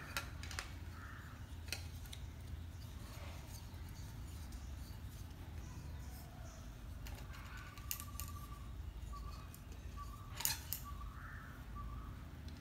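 Sharp plastic clicks and knocks from a YT-228 mini tripod being handled: its legs snapped open and the metal phone-holder clamp fitted onto its ball head. A few scattered clicks, the loudest about ten seconds in.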